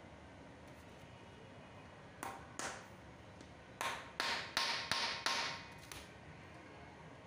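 Sharp taps on a high-heeled shoe during heel-tip replacement, with a faint metallic ring: two taps a little after two seconds in, then five more in quick succession about a second later.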